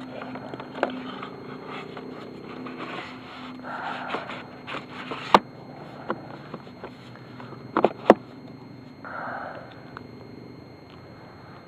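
Handling noise from an RC plane and its gear: sharp clicks and knocks and short bouts of scraping and rustling. A faint low steady hum stops with a sharp click about five seconds in, and the loudest knocks come as a pair about eight seconds in.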